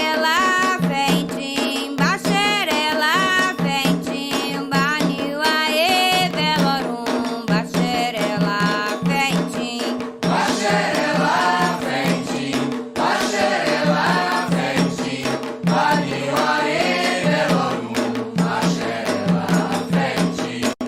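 Candomblé chant to Xangô: voices singing in Yoruba over hand drums and rattle in a steady rhythm. A single voice carries the first half, and a fuller group of voices takes over from about halfway, in call and response.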